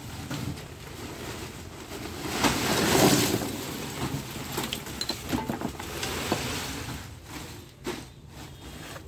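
Lumps of charcoal being scooped and poured into a plastic sack, with the sack rustling. A rush of clattering charcoal about two and a half to three seconds in, then scattered clinks and knocks of single lumps.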